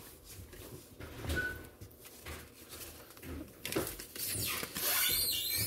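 Trading cards and their paper pack wrapper being handled: soft rustling and small clicks, then louder paper crinkling for the last second and a half or so.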